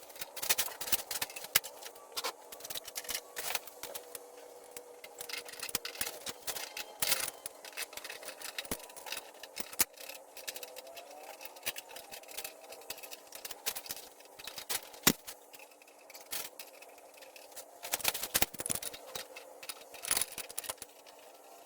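Scattered clicks, taps and light scrapes of handling, irregular and fairly quiet, over a faint steady hum.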